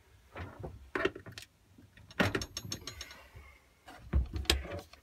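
Plastic knocks and clicks of a corded hammer drill and its side handle being handled on a wooden workbench, with a quick run of small ratchet-like clicks about two and a half seconds in.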